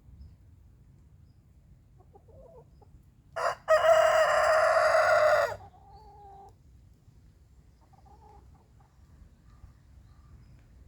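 Rooster crowing once, a loud cock-a-doodle-doo about two seconds long beginning about three and a half seconds in, with a brief note just before the main held call. Fainter bird calls come before and after.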